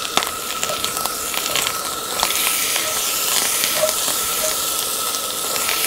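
Fried rice sizzling in a steel wok over a gas burner, with the metal spatula scraping and clicking against the wok as it is stirred. The sizzle grows a little louder about two seconds in.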